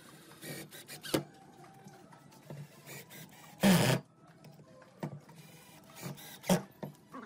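Cordless drill driving screws into pine wood in short bursts, the longest and loudest about three and a half seconds in, with a few shorter bursts before and after.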